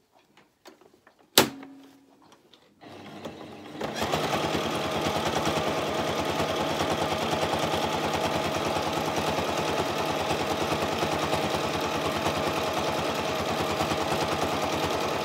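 A sharp click about a second and a half in. Then a Toyota electric sewing machine starts up about three seconds in and runs steadily at stitching speed as it stitches a jersey fabric strap.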